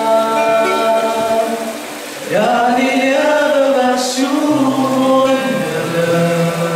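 Male vocal group singing in close harmony into microphones, holding long chords. The chord changes with an upward slide about two seconds in, and a low bass part comes in about halfway.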